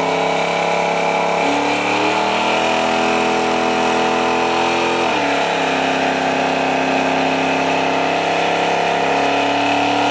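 First-generation Chevrolet Camaro's engine held at high revs during a burnout, its rear tyres spinning and smoking. The revs step up about a second and a half in, hold, drop sharply at about five seconds, then hold steady again.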